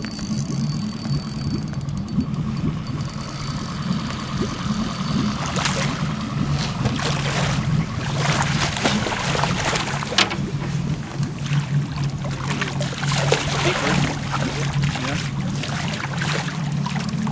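A steelhead thrashing and splashing at the surface as it is netted beside the boat, the splashing starting about five seconds in and going on in irregular bursts. Under it, the boat's motor hums steadily at idle.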